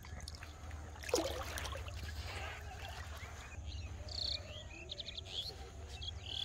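Small birds chirping in the background, with a short splash of river water about a second in as someone shifts while standing in the water. A steady low rumble runs underneath.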